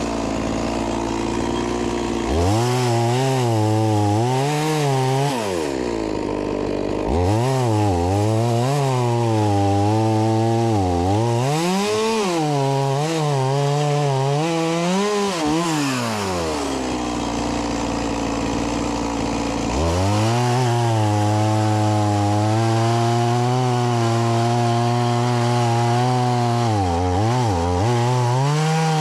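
Stihl MS 180 C-BE two-stroke chainsaw cutting through logs. It is revved up from idle three times, the longest run about nine seconds. Its pitch dips and wavers as the chain bites into the wood, and it drops back to idle between cuts.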